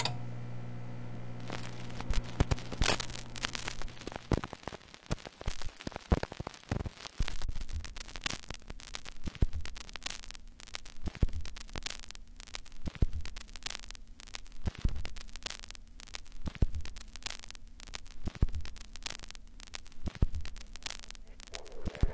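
Vinyl record surface noise: steady crackle and static with scattered clicks and a louder pop about every two seconds. A low mains hum sits under it and fades out about four seconds in.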